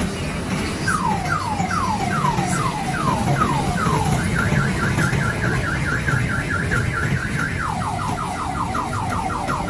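Electronic siren running through a car-alarm cycle. It starts about a second in with slow falling sweeps, a little over two a second. About four seconds in it switches to a rapid high warble, and near the end to quicker falling sweeps. A steady low rumble runs underneath.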